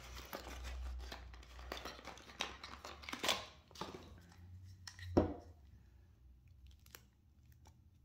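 Rustling, scraping and small clicks of things being handled, busiest for about the first five seconds and then dying down to a few faint ticks.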